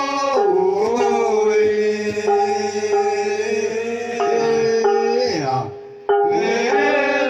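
A group of Manggarai men chanting together in long, held notes, several voices sustaining a drone beneath a gliding lead line. The chant fades briefly about six seconds in and starts again at full strength.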